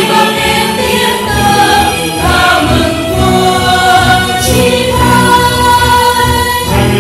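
A church choir singing a Vietnamese Catholic hymn in long, held notes.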